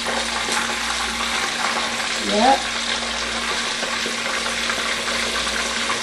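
Pieces of red snapper shallow-frying in hot oil in a wok, a steady sizzle.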